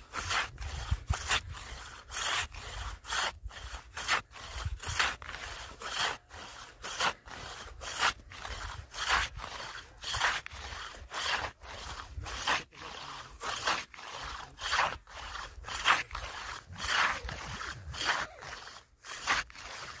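Hand saw cutting a hole through thick sea ice in steady back-and-forth rasping strokes, a little more than one a second.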